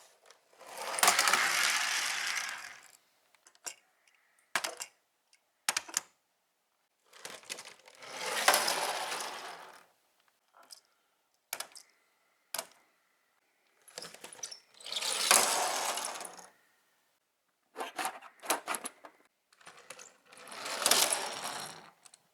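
Small toy cars rolling down a plastic slide, four separate runs of about two seconds each, with short clicks and clatters of the toys being handled in between.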